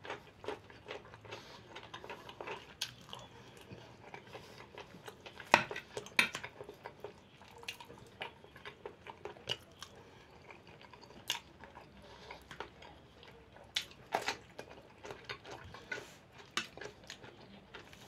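A man chewing and eating mashed potatoes and beef cutlets close to the microphone, with a fork clicking against a plate now and then. A few louder clicks come about five and a half seconds in, near eleven seconds and near fourteen seconds.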